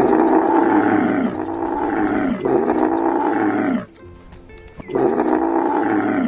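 Camel groaning: four drawn-out, loud calls, each dropping in pitch at its end, with a pause before the last one.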